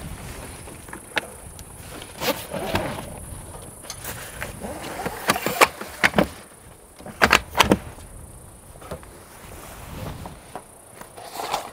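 Sharp clacks and knocks of hands working the hardware and cover of a truck's rooftop tent, scattered, with the loudest knocks coming in a quick group a little past halfway.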